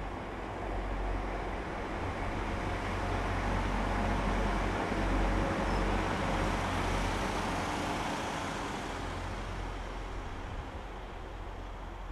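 Arriva Trains Wales Class 175 diesel multiple unit running past, its diesel engines humming under the rumble of wheels on the rails. The sound builds as the train comes close, is loudest about five to seven seconds in, then fades as it moves away.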